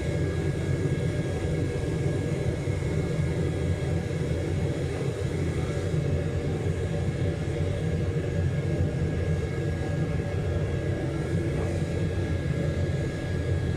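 Steady low roar of a foundry furnace burner running, with a faint steady whine above it.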